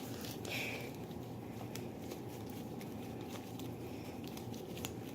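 Quiet room tone with a steady low hum and a few faint, scattered small clicks and taps.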